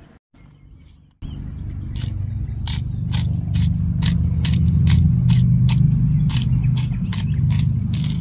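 Hand spice mill being twisted over a pan of sliced potatoes, grinding in regular scraping strokes about three times a second. A loud steady low rumble runs underneath, starting about a second in.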